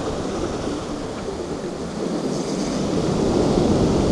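Strong wind buffeting the microphone over the wash of surf: a steady rushing noise, easing slightly midway before picking up again.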